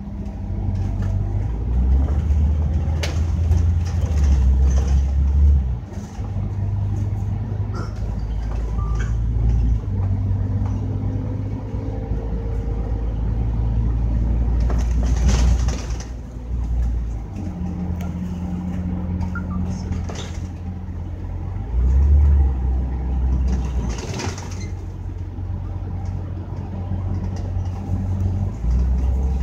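Scania K310UD double-decker bus's five-cylinder diesel engine running on the move, its low note stepping up and down several times as the bus pulls and eases off, with two brief hisses about 15 and 24 seconds in.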